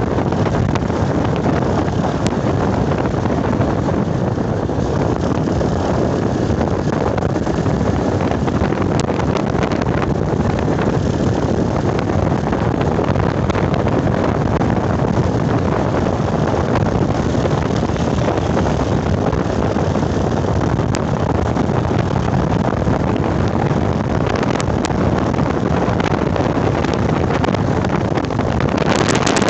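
Steady, loud rumbling noise of wind on the microphone, with a few faint ticks.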